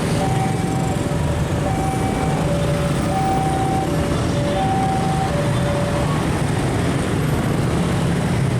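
Steady rumble of road traffic and engines, over which an electronic two-tone warning signal alternates between a higher and a lower beep about every half second, stopping about six seconds in.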